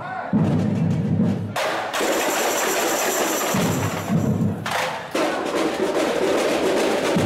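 Samba school bateria playing loudly: deep surdo bass drums under snare drums and tamborins. The low drums drop out for about a second and a half, about two seconds in, while the higher drums keep playing, then come back in.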